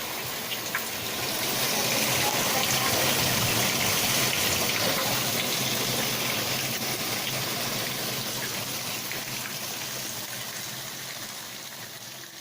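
Heavy rain falling, a steady rush of water that swells about a second and a half in and fades out near the end.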